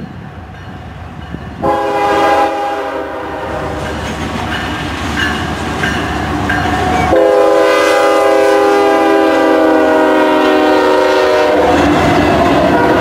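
CSX freight locomotive sounding its air horn, a chord of several steady tones that starts abruptly about two seconds in, steps lower and louder about seven seconds in, and stops near the end. Under and after it, the rumble and wheel clatter of double-stack intermodal cars rolling past.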